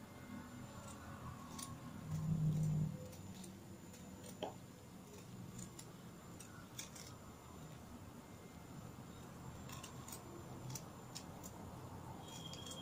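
Faint scattered clicks of a knife cutting bitter gourd into small pieces by hand over a plastic bowl, with a brief low hum about two seconds in.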